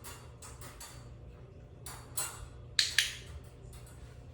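A few light clicks and taps, then two sharp clicks in quick succession about three seconds in, over a low steady hum.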